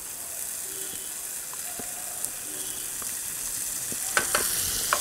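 Chopped garlic and green chillies sizzling in hot oil in a frying pan, the sizzle growing a little louder. A wooden spatula scrapes and taps against the pan a few times near the end.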